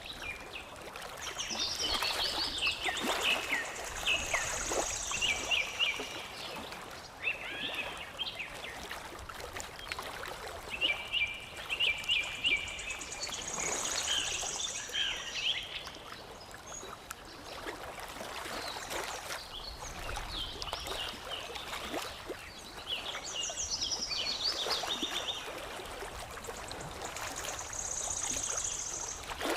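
Songbirds singing in repeated phrases of quick chirps, each ending in a high buzzy trill, over steady lapping and trickling water. The song comes back three times, with quieter stretches of water between.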